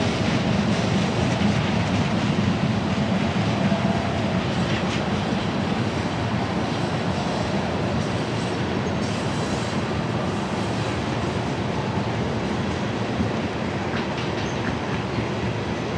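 A freight train of loaded ethanol tank cars rolling past: a steady noise of steel wheels on the rails that slowly grows quieter.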